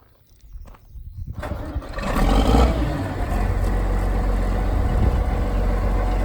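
John Deere 690B excavator's diesel engine starting up a little over a second in, then running steadily.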